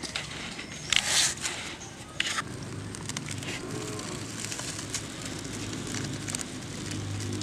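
Dry leaves and twigs rustling and crackling as they are pushed into a small wood fire and catch alight, with loud rustles about a second in and again a second later.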